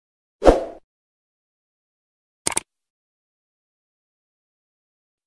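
Two short editing sound effects in otherwise dead silence: a brief soft burst about half a second in, then a short click about two and a half seconds in.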